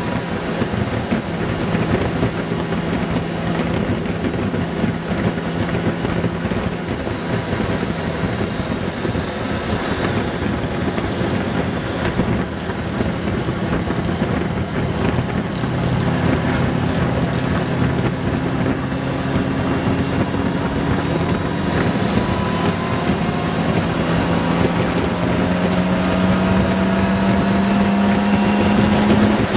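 Honda Gold Wing 1800's flat-six engine running at road speed, with steady wind noise on the microphone. Near the end the engine note rises slowly as it speeds up.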